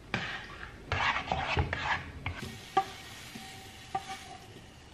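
Eggs being stirred and scraped around a non-stick frying pan with a utensil, a dense scraping for about two seconds. Then a faint sizzle with a few sharp taps of the utensil against the pan as the cooked eggs are scraped out into a bowl.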